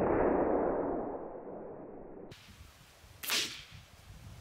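Shots from a .22 Weihrauch HW97K spring-piston air rifle with pellet hits on apples: a long, muffled whoosh that fades over about two seconds, then a single sharp crack about three seconds in.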